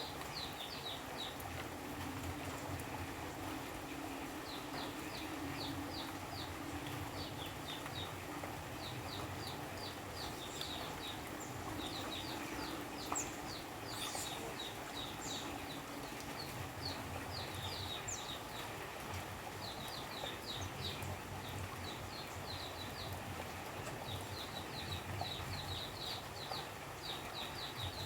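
Rainforest rain falling steadily, with runs of short, high chirping calls repeating over it throughout.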